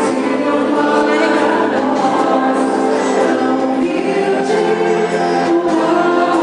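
A choir singing during a Christmas Mass, the voices holding sustained notes.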